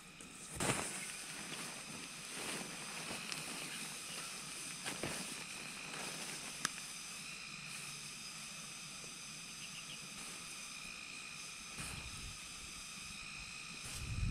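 Steady high outdoor hiss made of several held tones, with a few sharp clicks and knocks and some low rumbles near the end.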